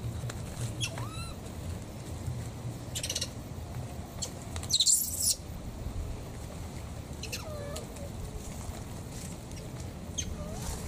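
A baby monkey gives short squeaking cries, three times, each sliding in pitch. Rustling runs between them, with one short loud rustling burst about five seconds in.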